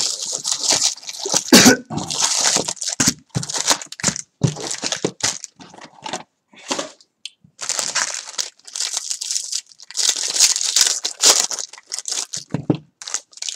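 2018 Bowman Jumbo trading-card box being opened and its foil packs handled and set down, then a foil pack torn open near the end: crinkling, crunching and tearing in irregular bursts, with a short lull about halfway.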